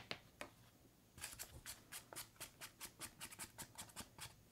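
Small plastic spoon scraping and tapping against toy baking trays while dough batter is scooped into the moulds: a quick run of faint, sharp scrapes, about seven or eight a second, starting about a second in.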